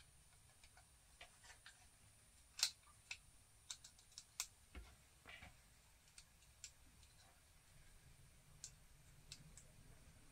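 Faint scattered clicks and taps of a 3D-printed plastic pulley bracket and small metal parts being handled and fitted together by hand, the sharpest click about two and a half seconds in.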